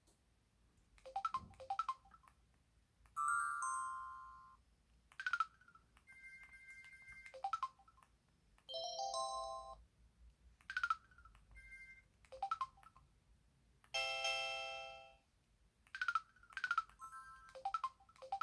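Samsung Anycall Ultra Edition (SPH-V9000) mobile phone playing a run of its built-in short effect sounds one after another: about a dozen brief electronic chimes, beeps and quick falling chirps, each under two seconds, with short gaps between them.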